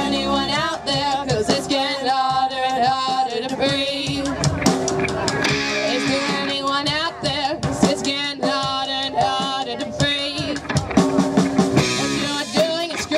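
Live amateur rock band playing a song: distorted electric guitars, bass and a drum kit over amplified stage speakers.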